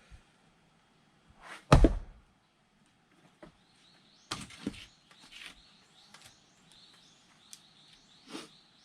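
One heavy blow of an axe striking a log to split firewood, about two seconds in, with a short swish just before it. It is followed by several lighter wooden knocks and clacks, from the split pieces and the next log.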